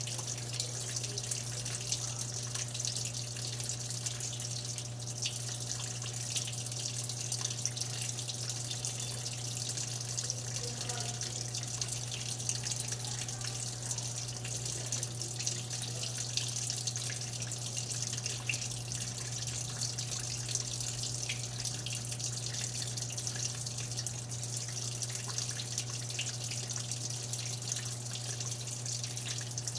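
Electrolux LTE12 washing machine filling, water running steadily into the tub over a constant low hum.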